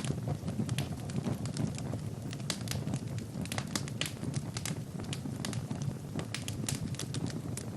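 Wood fire burning in a fireplace: a steady low rumble of flames with sharp crackles and pops from the burning logs, several a second, irregular.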